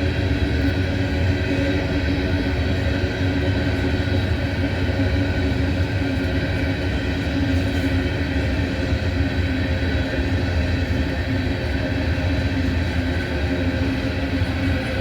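Long freight train rolling slowly past while climbing a grade: a steady, unbroken rumble of wheels and cars, with several steady tones held over it.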